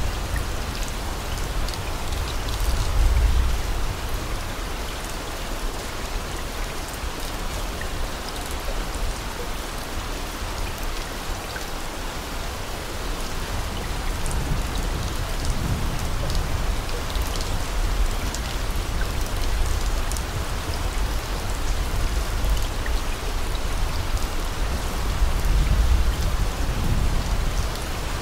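Steady rain, a continuous even hiss, with a low rumble swelling up a few times: near the start, in the middle and near the end.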